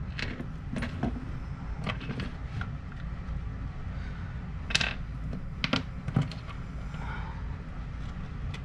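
Small metal hand tools clicking and clinking as they are rummaged through for a screwdriver, with a few sharper clinks about five to six seconds in.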